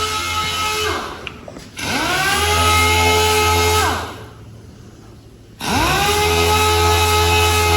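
Handheld electric power tool run in short trigger bursts: it winds down about a second in, spins up just before two seconds, runs steadily for about two seconds and winds down, then spins up again near six seconds and keeps running.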